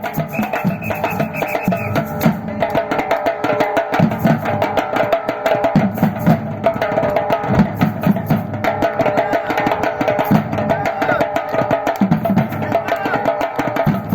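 Batucada percussion ensemble playing a fast, steady groove: deep bass-drum hits under dense, sharp drum and wood-block strikes.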